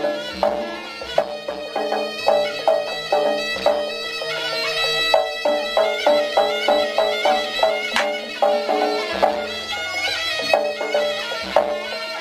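Live jaranan ensemble music: a reedy wind-pipe melody, typical of the slompret, over kendang drum strokes and a steady low drone, with one sharp crack about eight seconds in.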